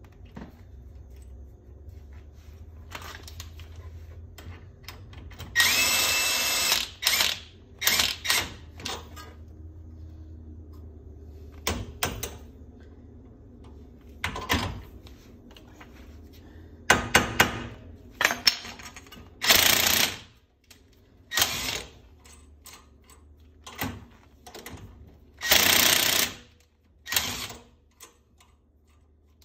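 Cordless impact wrench hammering in about a dozen short bursts, the longest about a second and a half, while new wheel studs are pulled into the front hub.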